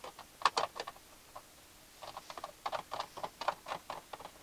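Ratchet wrench clicking in short, quick runs as bolts are tightened into the A/C evaporator support bracket: one brief run about half a second in, then a longer run from about two seconds in.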